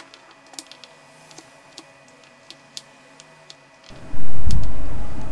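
Knife slicing sweet potato on a plastic cutting board: a string of light clicks as the blade cuts through and taps the board. About four seconds in, a sudden loud low noise starts and slowly fades.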